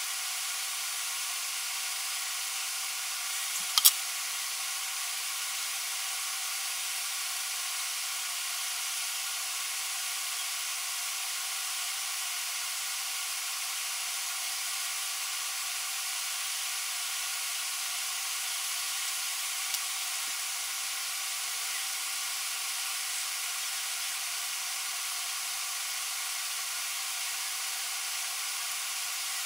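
A steady hiss with no change over time, with one sharp click about four seconds in and a faint tick later on.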